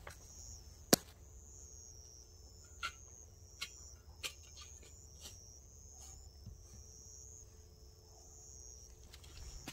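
Insects chirping in short, high repeated notes, with one sharp click about a second in and a few softer clicks after it.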